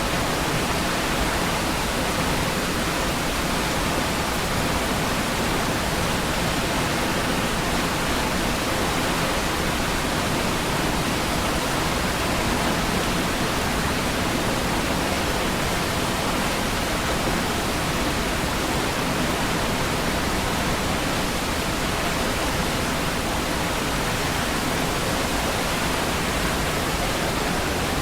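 Niagara Falls, a large waterfall, its water rushing in a steady, unbroken wash of noise.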